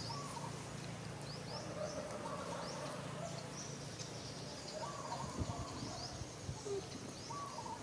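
Small birds chirping in repeated short, rising calls over a faint outdoor background, with a steady high buzz through the middle and a few soft low thumps about five seconds in.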